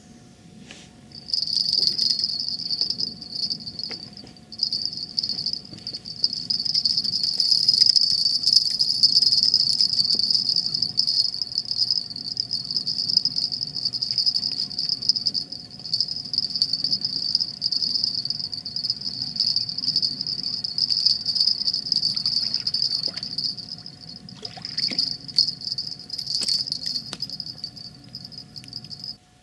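Crickets trilling continuously in a high, steady chorus at night, with a brief break about four seconds in.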